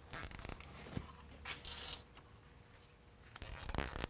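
Nylon zip ties being pulled tight around a wire harness on a truck frame: three short ratcheting zips, with a few light clicks of handling between them.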